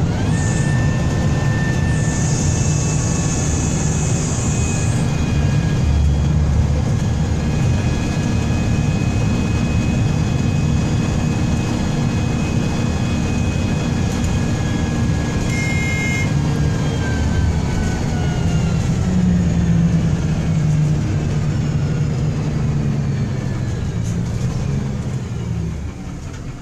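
Cabin sound of an Alexander Enviro 300 bus on a MAN chassis under way: the diesel engine and drivetrain running with a low rumble and a gear whine that the title puts down to a bad differential. The whine falls in pitch in the second half and the noise eases near the end as the bus slows, with a high hiss for a few seconds about two seconds in.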